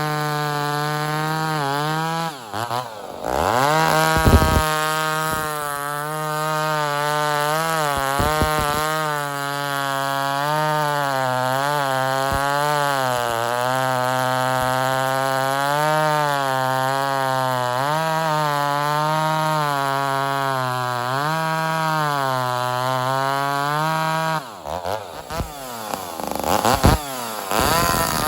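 Ported Homelite XL-76/XL-130 hybrid two-stroke chainsaw running at high revs, its pitch wavering up and down, dropping off briefly and climbing back about two to four seconds in and again near the end. The saw is set a little lean, and its carburettor still needs tweaking.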